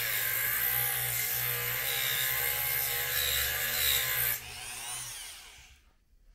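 High-speed rotary tool cutting a groove across a strip of steel office staples: a steady motor whine with a grinding hiss. About four seconds in it comes off the work and winds down to a stop.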